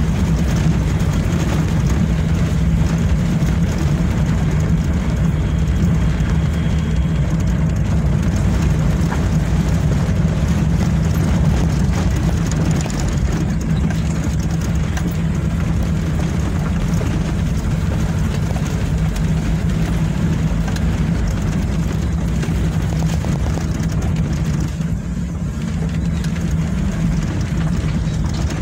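Motor vehicle engine running at a steady speed: a low, even hum over a rush of wind and road noise, as heard from the moving vehicle.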